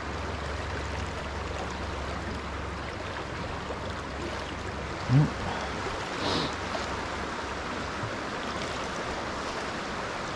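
Fast river water rushing steadily through a riffle, with a steady low rumble underneath. About halfway through comes one short rising note, the loudest sound here.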